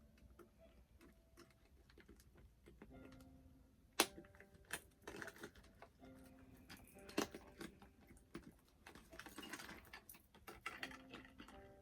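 Small doll accessories and packaging being handled: scattered light clicks and taps, with two sharper clicks about four and seven seconds in.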